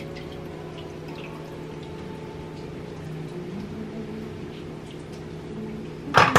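Crab stock in a stock pot: liquid dripping and splashing back into the pot as crab shells are lifted out, over a steady low hum. A loud clank comes near the end.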